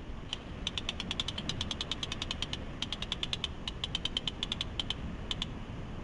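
Rapid runs of sharp clicks, about ten a second, close to the microphone, with short pauses between runs, over a low steady rumble. The clicks stop shortly before the end.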